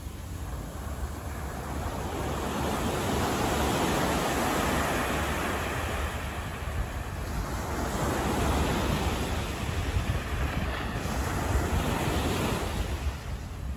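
Rushing outdoor city ambience that swells and fades every few seconds, with no distinct event standing out.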